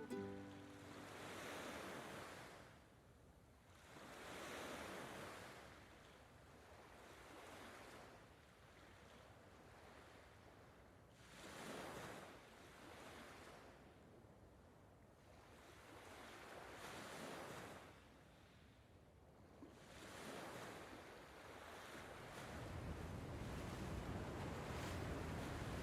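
Sea waves washing in, rising and falling in soft swells every few seconds, with wind; toward the end a low wind rumble on the microphone joins in.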